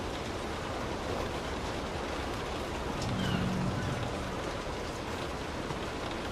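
Steady rain falling on a car's roof and windows, heard from inside the car, with scattered drop ticks. A brief low rumble comes about three seconds in.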